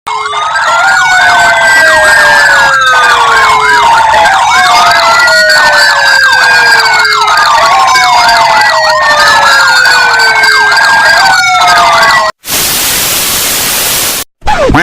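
Several electronic emergency sirens sounding together: a slow wail rising and falling about every three and a half seconds over a fast yelp and a steady tone. They cut off about twelve seconds in, and a loud burst of hiss follows for nearly two seconds.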